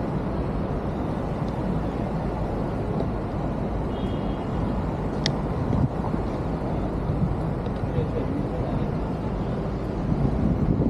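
Street noise from a moving bicycle in city traffic: a steady low rushing of passing traffic and air over the camera. A short high beep sounds about four seconds in, and a single sharp click follows about a second later.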